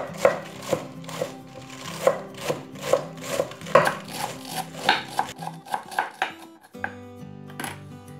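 Kitchen knife chopping lettuce on a wooden cutting board, a steady run of strokes about two to three a second that stops a little before the end. Soft background music runs underneath.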